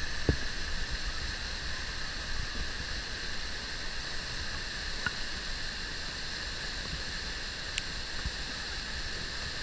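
Steady rush of a flash-flooded waterfall, muddy floodwater pouring off a high cliff and crashing into its plunge pool.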